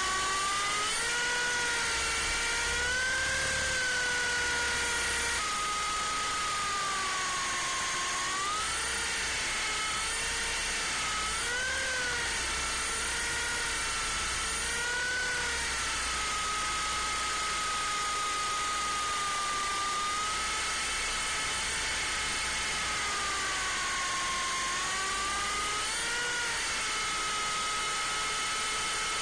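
MJX F45 radio-controlled helicopter's electric motor and rotor whine, heard close up from its on-board camera. The pitch rises and falls repeatedly as the throttle changes through turns.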